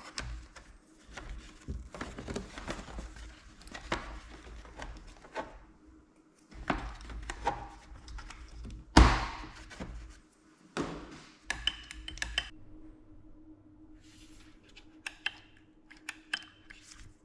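Hand work on a workbench: an irregular run of knocks, clicks and light clatter as tools and small parts are handled, with one loud knock about nine seconds in. A faint steady hum runs underneath.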